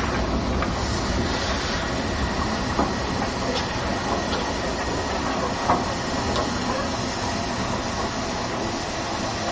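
Hunslet Austerity 0-6-0ST saddle-tank steam locomotive moving slowly over yard tracks: a steady rumble with a few sharp clanks and clicks from the wheels and rail joints, one louder clank a little past halfway.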